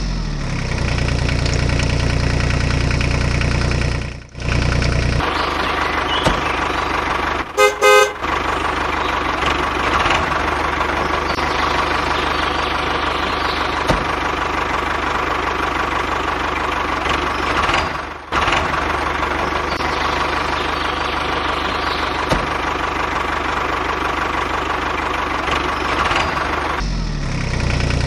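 Electric motor and gears of an RC model tractor whining steadily, with two short horn toots about seven and a half seconds in.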